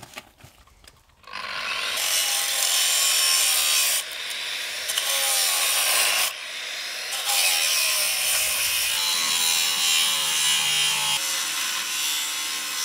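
Angle grinder cutting into the steel body of an old safe: a loud grinding hiss that starts a little over a second in, eases off briefly twice, and carries on.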